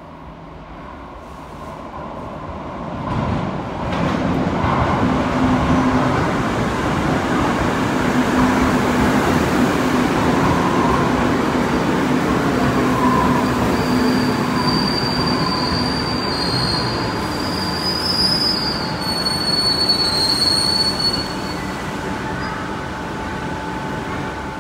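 Madrid Metro Line 5 2000-series train arriving in an underground station. Its rumble swells over the first few seconds as it leaves the tunnel, then holds steady as it runs alongside the platform. In the second half there are several seconds of high-pitched squealing as it slows.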